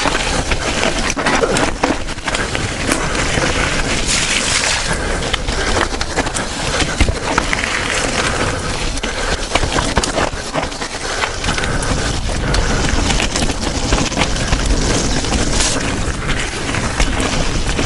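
Mountain bike descending a rough downhill trail at speed: tyres rolling and crunching over dirt and rocks, with a dense, irregular clatter of small knocks from the bike over the bumps.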